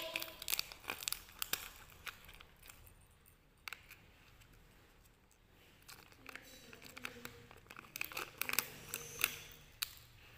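Plastic snack-cake wrapper crinkling and tearing as it is peeled open by hand, in scattered crackles that ease off in the middle and pick up again after about six seconds.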